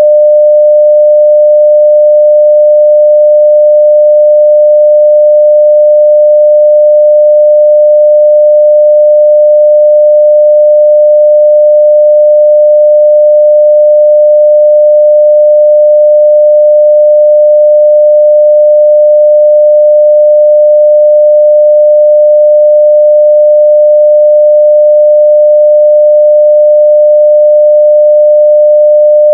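A continuous 600 Hz sine-wave test tone at full level, one pure pitch held perfectly steady.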